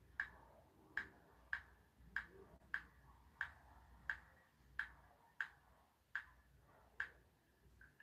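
A series of light ticks, about a dozen, roughly one every two-thirds of a second and slightly uneven, over a faint low hum.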